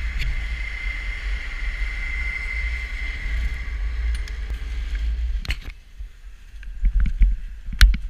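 Skiing heard through a GoPro's microphone: a steady low rumble from skis sliding on snow and wind on the microphone, with a steady high whine while passing through the chairlift terminal. The whine drops away about five and a half seconds in with a sharp clack, and a few knocks and thumps follow near the end.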